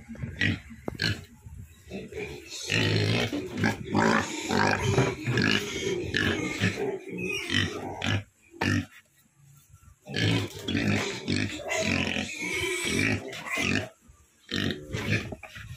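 Young Duroc × Large White cross pigs grunting and squealing in two loud stretches, with a short lull a little past the middle. They are hungry pigs clamouring for feed, one standing up on the pen gate beside the feed bucket.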